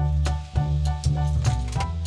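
Upbeat background music with a steady beat and a bass line that repeats about every half second.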